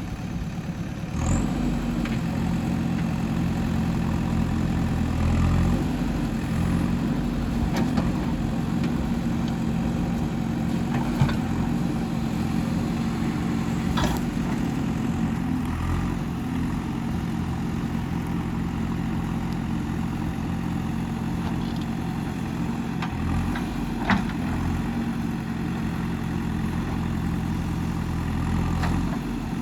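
Diesel engine of a digging machine running steadily, working harder around the second and fifth seconds. A few sharp knocks are heard along the way, about a dozen seconds apart.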